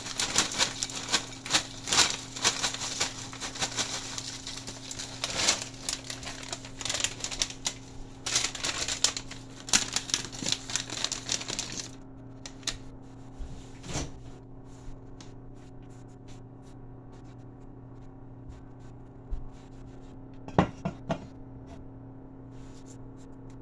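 Crinkly chip bag rustling and ridged potato chips clattering onto a ceramic plate as they are shaken out, dense crackling for about the first twelve seconds. Then quieter, with scattered light clicks, a knock, and a couple of sharp clicks near the end as an aluminium can is set on the counter, over a steady low hum.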